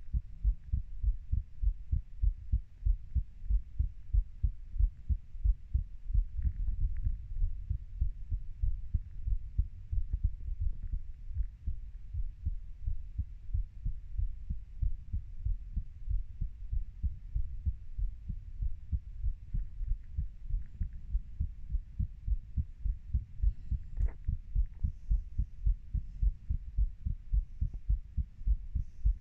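Human heartbeat: a steady, even rhythm of low thuds, with one short sharper click about four fifths of the way in.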